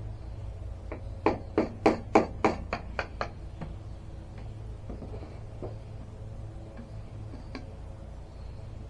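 Hammer strikes: a quick run of about ten sharp taps, roughly three a second, then a few fainter scattered taps, while prying a part off a sawmill.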